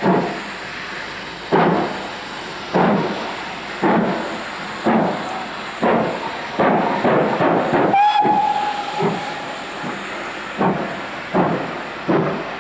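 Great Western Castle class 4-6-0 steam locomotive Nunney Castle starting a loaded train: loud, slow exhaust beats that come steadily quicker as it gets under way, with steam hissing. A short steam whistle sounds about eight seconds in.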